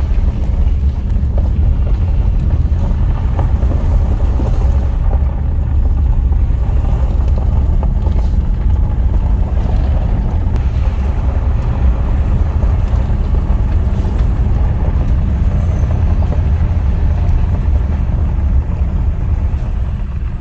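Steady low rumble of a vehicle being driven: engine and road noise at an even speed.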